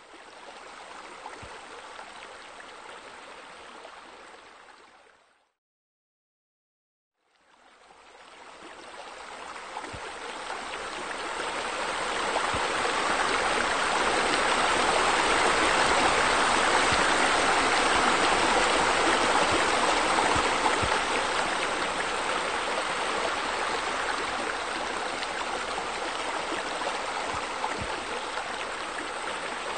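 Steady rush of running water, like a waterfall or stream. It fades out about five seconds in, is silent for about two seconds, then swells back up gradually and holds.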